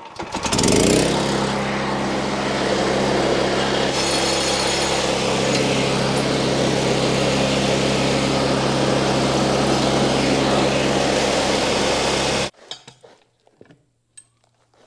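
Wood-Mizer LX portable band sawmill running: the engine revs up about half a second in and holds steady as the band blade saws through a log, then cuts off abruptly shortly before the end. A few faint knocks follow.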